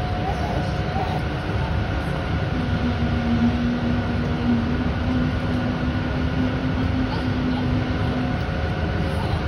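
Steady low rumble of an indoor pool hall, with a steady hum joining it from a couple of seconds in until near the end.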